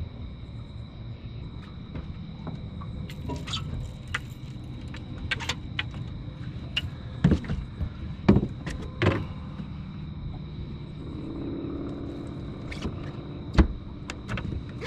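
Fishing gear being handled in a boat: a few sharp knocks and clicks, clustered about seven to nine seconds in and once more near the end, over a steady low hum.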